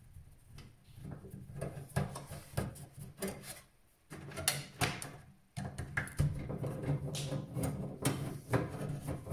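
Scattered clicks and knocks of metal computer parts being handled inside a desktop PC case as the old hard drive is worked loose, over a low steady hum.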